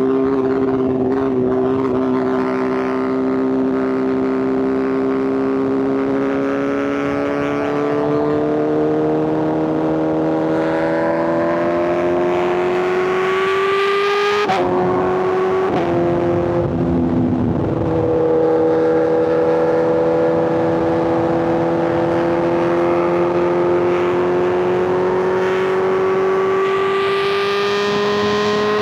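Inline-four superbike engine pulling under way. Its pitch rises slowly for about fourteen seconds, then drops sharply at an upshift. It dips briefly, picks up again, and climbs steadily to another shift near the end.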